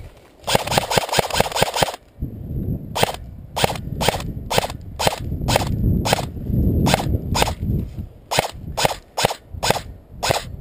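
Airsoft rifle firing close by: a rapid full-auto burst lasting about a second and a half, then a string of single shots, roughly two to three a second.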